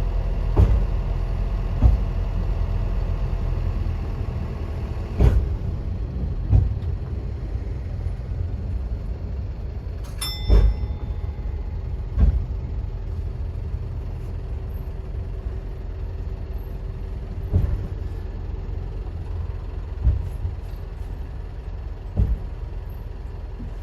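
Interior sound of the DMV dual-mode vehicle running on rails: a steady low diesel rumble that eases off, with sharp knocks from the wheels at irregular intervals. A brief high tone sounds about ten seconds in.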